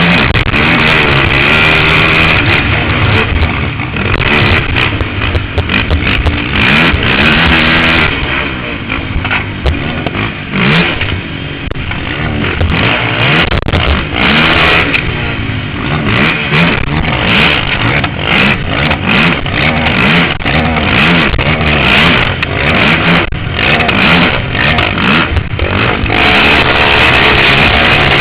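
Can-Am DS450 quad's single-cylinder four-stroke engine being raced, its pitch rising and falling repeatedly as the throttle is opened and eased off, with sharp clattering knocks and wind buffeting over the top. The revs drop off for stretches around a third of the way in and again about halfway, then climb again.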